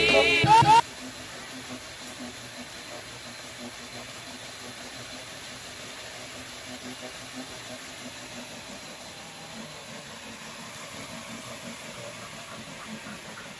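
A hip-hop song cuts off abruptly under a second in, leaving the steady low rumble and hiss of a dog treadmill running under a pit bull.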